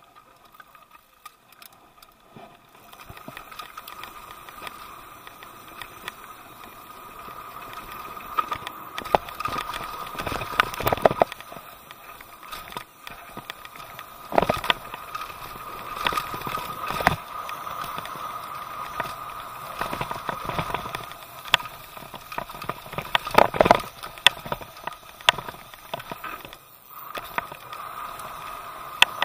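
Mountain bike descending dirt singletrack at speed: tyres rolling and crunching over the trail with wind rushing over the camera, broken by sharp clattering knocks from the bike over bumps. Quiet for the first few seconds, then louder as the bike picks up speed.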